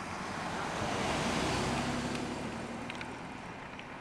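Wind rushing over a camcorder microphone that has no wind cover, swelling about a second in and easing off toward the end.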